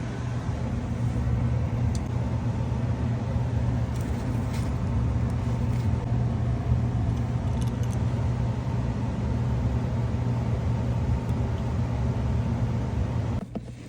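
Steady low machine hum that stops suddenly shortly before the end.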